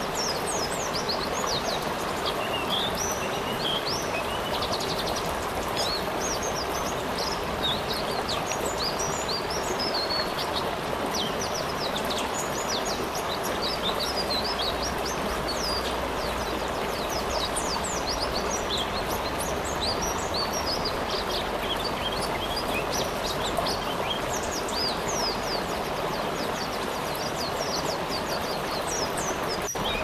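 A steady rush of water with forest birds chirping over it: many short, quick, high calls, often several in quick succession.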